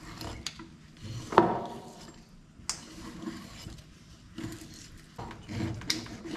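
A large kitchen knife filleting a fish on a cutting board: scraping and slicing strokes with scattered clicks, and one sharp knock with a brief ring about a second and a half in.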